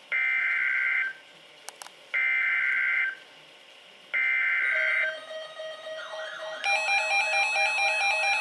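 Emergency Alert System SAME header: three identical one-second bursts of screeching digital data tones, a second apart. After about five seconds a steady tone and a repeating electronic melody come in and grow louder near the end.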